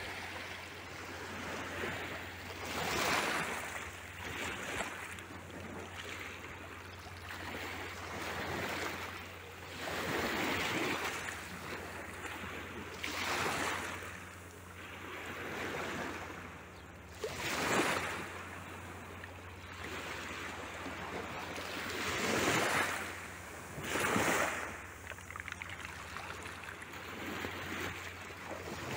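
Small Mediterranean waves lapping on a pebble-and-sand shore, each one washing in with a rush that swells and fades every two to three seconds.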